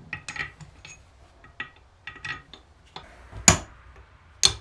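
Light clicks and clinks of small hardware being handled, then two sharp hammer blows in the last second and a half.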